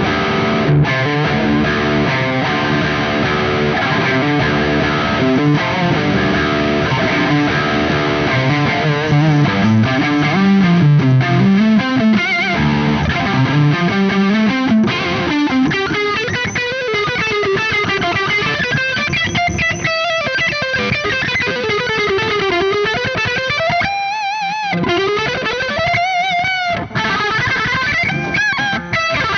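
Electric guitar played through a Soldano SLO100 clone valve amplifier with overdrive: chords and low riffs for the first half, then single-note lead lines with wide vibrato and bends.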